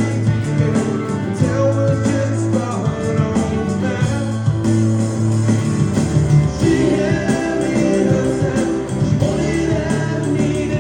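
Live band playing a rock and roll song, with a steady beat and sustained bass notes.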